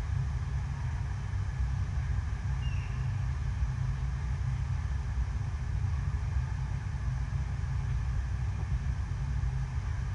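Steady rushing water of an indoor artificial surf wave, water pumped up and over the sheet-wave ramp: a continuous deep rumble with a hiss of water on top.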